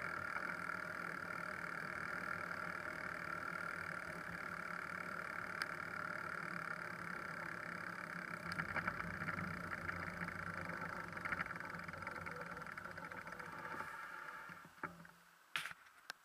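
Steady riding noise of a bicycle on a paved cycle path: tyres rolling and wind on the microphone, with a steady hum. It fades about 14 seconds in as the bike slows and stops, followed by a couple of sharp knocks.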